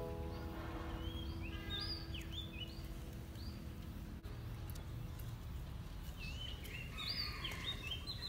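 Birds calling in two bouts of short, quickly rising and falling chirps, over a steady low outdoor rumble.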